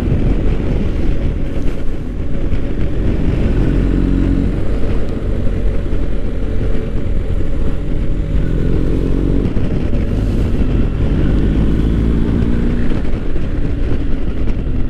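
BMW R1250 GS boxer-twin motorcycle engine running under way, its note rising and falling a few times, over a steady rumble of wind on the helmet microphone.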